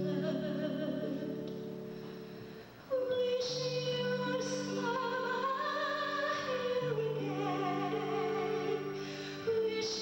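A woman sings a slow song with vibrato into a microphone over sustained instrumental accompaniment. One phrase dies away near three seconds in, and a new one starts at once at full voice; another begins just before the end.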